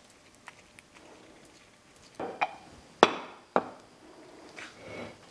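A few sharp metal clicks and knocks, the loudest about three seconds in, as a freshly greased tapered roller wheel bearing is set into the hub of a brake rotor, then softer handling noises near the end.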